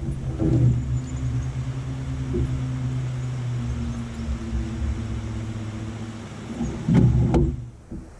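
A boat motor hums steadily and low. About half a second in there is a short clatter, and around seven seconds in a louder one with two sharp knocks, as the landing net and a bass are handled in the boat.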